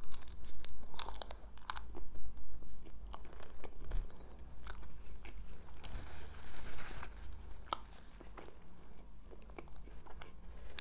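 Close-miked chewing of a bite of chicken shawarma wrap, with many crunching clicks, thickest in the first few seconds. About six seconds in, a soft paper-napkin rustle as the mouth is wiped, then quieter chewing.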